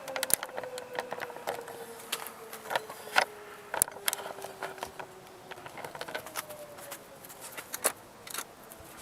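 Irregular light clicks and taps of hands working at a 22R-E engine's distributor, unplugging the coil wire. A faint steady hum runs underneath and slowly falls in pitch.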